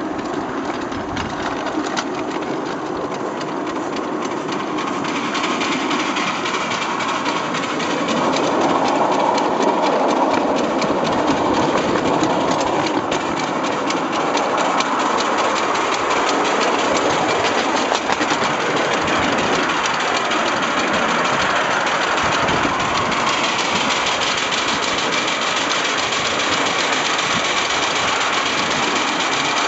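A 7¼-inch gauge live-steam locomotive running along its track under steam, the sound of the moving engine steady and getting louder from about six to eight seconds in.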